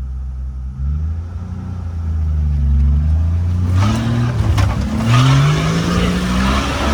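1990 Jeep Wrangler YJ engine revving hard as it drives into a deep mud hole, its pitch rising and falling several times. About four seconds in, a loud rushing splash of mud and water against the vehicle joins the engine.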